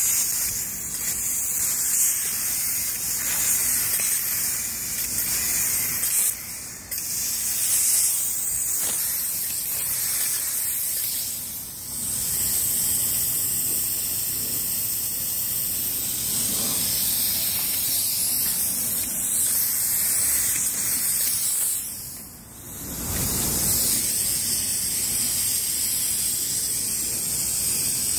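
High-pressure plural-component spray gun hissing steadily as it sprays black coating, with three brief letups in the spray.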